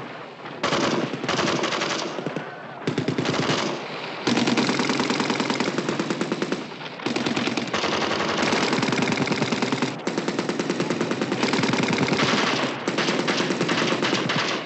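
M16 rifles firing on full automatic: shorter bursts in the first few seconds, then long, rapid, near-continuous fire broken by brief pauses.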